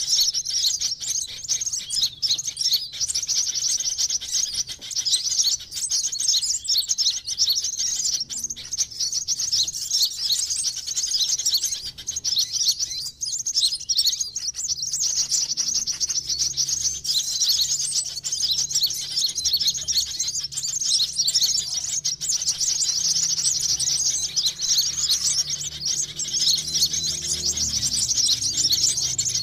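Dense, continuous high-pitched twittering and chirping of sunbirds, played as a lure call (suara pikat) to draw wild sunbirds in.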